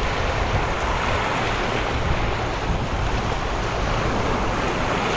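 Rough surf washing steadily on the shore, with wind rumbling on the microphone.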